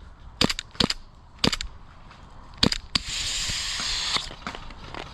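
Airsoft gunfire: four sharp single shots, spaced unevenly over the first three seconds. They are followed by a hiss lasting about a second and a few fainter pops.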